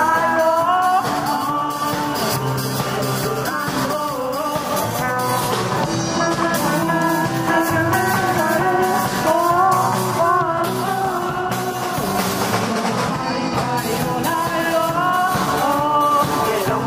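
A live student rock band playing: a girl singing a melody into a microphone over a drum kit, electric bass and guitar.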